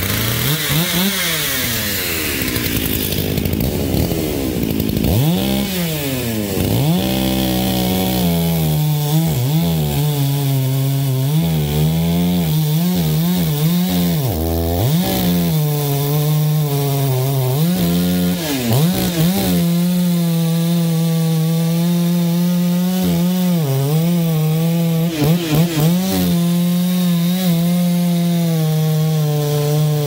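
Two-stroke chainsaw engine running unloaded, its speed rising and falling unevenly at first, then holding a steadier speed from about two-thirds of the way in, with a few brief revs near the end.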